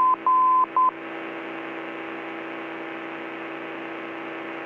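Morse-code identifier of an ILS localizer heard over the aircraft's NAV1 receiver audio: a steady tone of about 1 kHz keyed in dashes and a dot, ending about a second in. After it only the steady cabin drone of the airplane comes through the intercom.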